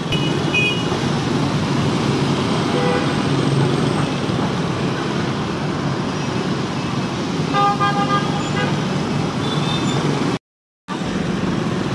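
Dense street traffic of motorbikes, scooters and cars running close by, with horns beeping briefly near the start and again about eight seconds in. The sound cuts out for about half a second near the end.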